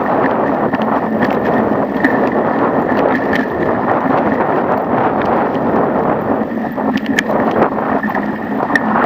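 Wind rushing over the microphone of a bicycle-mounted camera while riding. Irregular clicks and rattles come from the bicycle jolting over the joints of a concrete-slab path.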